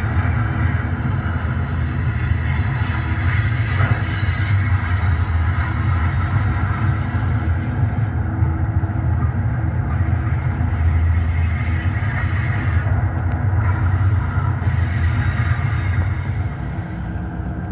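Diesel freight train sound effect: a steady low locomotive rumble, with a thin, high wheel squeal for a few seconds early on and again briefly later.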